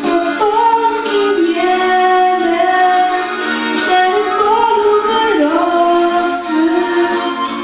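A teenage girl sings a slow melody with long held notes into a handheld microphone, over a quiet instrumental accompaniment.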